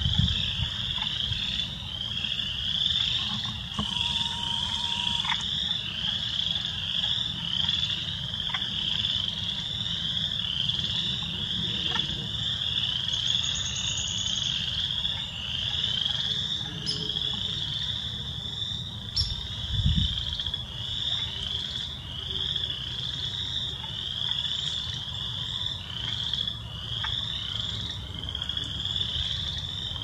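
A dense chorus of spring peepers: many high peeps overlapping into a continuous ringing, over a low rumble.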